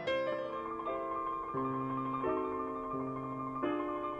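Background piano music with slow, held chords.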